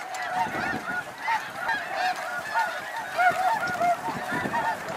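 A big flock of snow geese calling all at once: a dense, unbroken chorus of short, high, overlapping honks.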